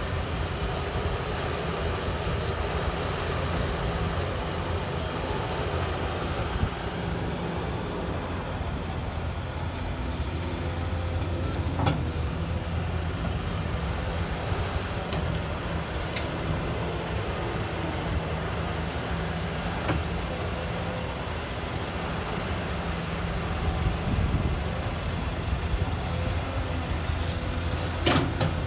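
Diesel engines of a Cat 330 hydraulic excavator and a BMC 827 Pro dump truck running steadily on an earthworks site. Near the end a short knock is heard as the excavator swings a loaded bucket over the truck's tipper body.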